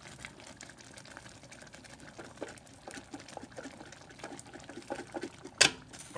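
Hot canned chow mein sauce bubbling in a saucepan, with crackling splashes as canned vegetables are tipped into it. A single sharp splash or clatter comes about five and a half seconds in.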